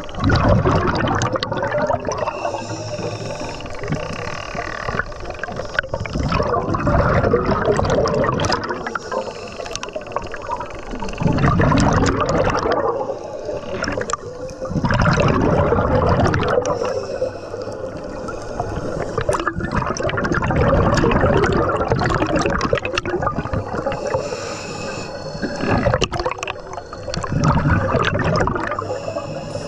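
Scuba diver breathing through a regulator underwater: exhaled air bubbling and gurgling in waves that swell every four to five seconds, with hiss between them.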